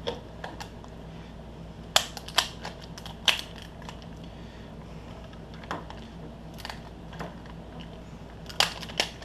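A hand-held puzzle is handled and worked apart with scattered sharp clicks and knocks at irregular moments, the loudest about two seconds in and near the end. A faint steady hum runs underneath.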